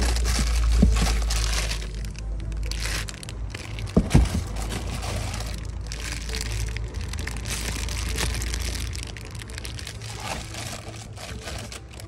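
Clear plastic packaging bags crinkling and rustling as wrapped parts are handled and lifted out of a foam packing tray, with a couple of sharp knocks about four seconds in.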